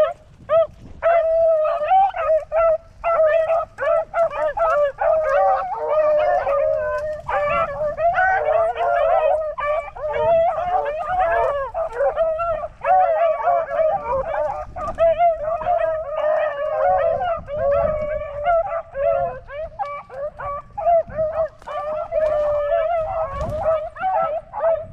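A pack of beagles baying continuously, many voices overlapping: the hounds are in full cry on a swamp rabbit's scent trail.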